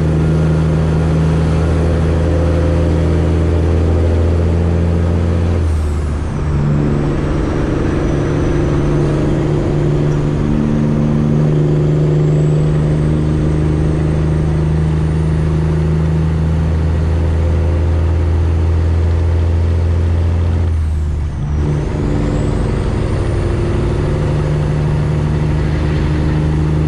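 Straight-piped Freightliner Classic XL diesel engine pulling under load, loud and steady. The engine note breaks briefly for a gear change about six seconds in and again around twenty-one seconds, with a faint high whistle that dips at each break and climbs back.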